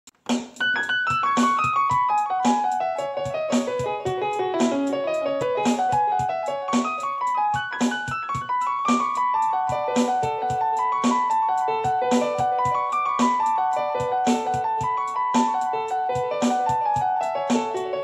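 Instrumental piano beat: quick runs of piano notes stepping downward in pitch, repeated over a steady beat with a low note about once a second.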